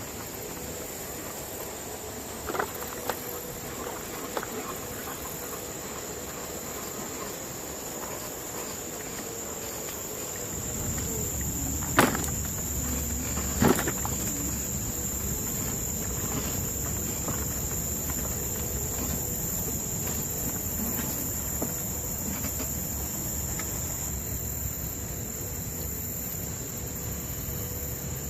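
Steady, high-pitched chorus of crickets and other insects. A few light clicks come a few seconds in and two louder knocks near the middle. From about ten seconds in, a low rumble of noise joins underneath.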